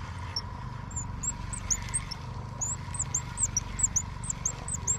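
Spinning reel being cranked steadily to bring in a hooked crappie, a low even whir. A run of short high chirps, two to four a second, sounds over it.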